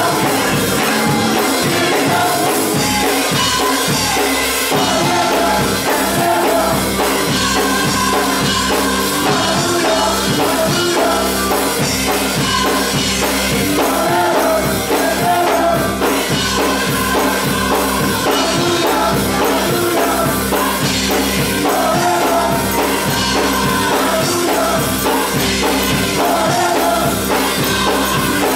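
Church choir singing with a live band, a drum kit and bass keeping a steady beat; the low end of the beat comes in fully about three seconds in.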